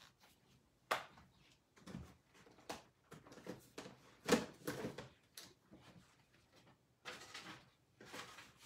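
Irregular light clicks, knocks and rustles of paper-crafting supplies being handled on a desk, the loudest knock about four seconds in.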